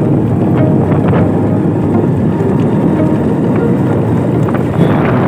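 Motorbike riding along at speed, its engine running steadily under loud wind buffeting on the microphone.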